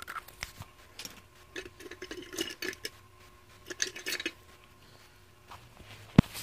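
Plastic lipstick tubes and cases clicking and clattering as they are rummaged through, with one sharp knock about six seconds in.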